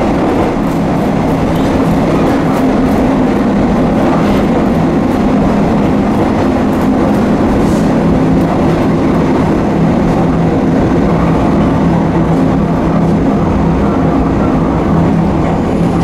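Kanto Railway diesel railcar running, heard from inside its cab: a steady diesel engine hum under the rumble and clatter of wheels on the rails.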